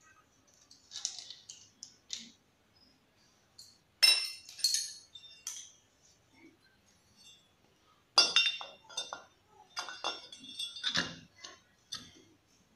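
Sharp metallic clinks of steel hardware: dynabolt bolts, nuts and a thin steel plate being handled and fitted onto anchors in a wall. A few clinks come about a third of the way in, and a denser run of clinks follows in the last few seconds.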